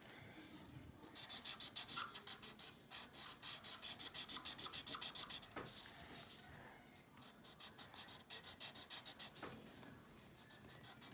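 Sharpie marker tip scribbling on paper in quick back-and-forth strokes as an area is coloured in. The strokes grow fainter about two-thirds of the way through.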